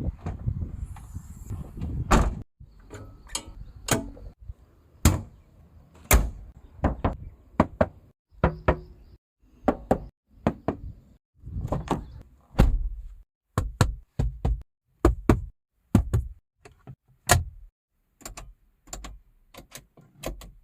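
A series of car door sounds on a Maruti Suzuki Grand Vitara: latch and handle clicks and doors being shut with heavy thuds. Each sound is separate, dozens in all, with brief silences between them.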